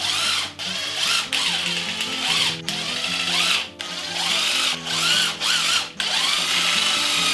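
Cordless impact wrench running in several short runs, its motor whine rising and falling as it hammers out the main bearing cap bolts on a Ford FE 360 big-block.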